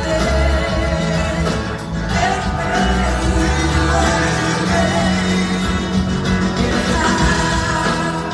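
Live blues-rock band playing: a woman singing lead over electric guitars, bass and a drum kit, filling a large theatre.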